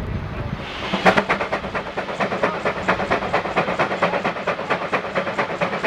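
20 HP Minneapolis steam traction engine's exhaust chuffing in a fast, even beat, about six a second, starting about a second in after a short hiss of steam.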